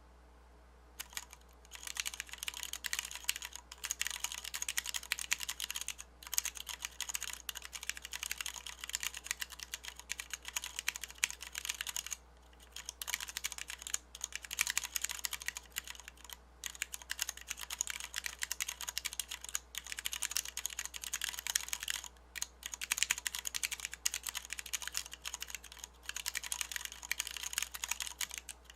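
Fast typing on a Massdrop Planck ortholinear mechanical keyboard with Cherry MX Brown switches, PBT DSA keycaps, a steel plate and a milled aluminium case: a dense, continuous stream of key clacks that starts about a second in, broken by a few brief pauses.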